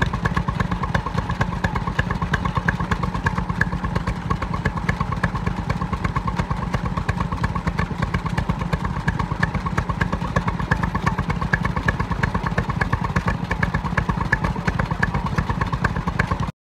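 Vintage stationary engine running steadily with a rapid, even exhaust beat; the sound cuts off suddenly near the end.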